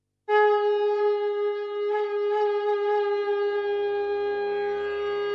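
Intro music: a single long held wind-instrument note, rich in overtones, starting abruptly just after a moment of silence. A low drone comes in underneath about three seconds in.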